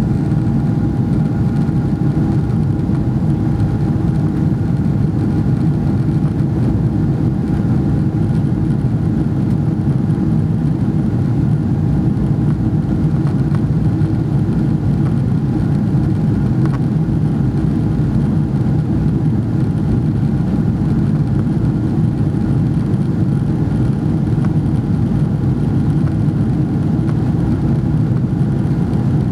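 Steady cabin noise inside a Boeing 777-300ER in flight: the deep drone of its GE90 engines and the rush of air, with a few constant whining tones over the top.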